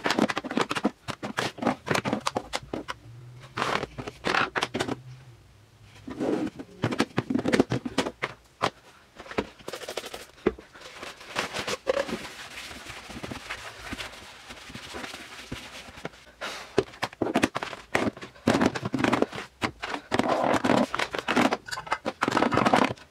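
Plastic and metal makeup compacts clacking and knocking as they are lifted out of a drawer and set down, then a paper towel rubbing and swishing across the empty drawer's bottom, then compacts clicking as they are put back in near the end.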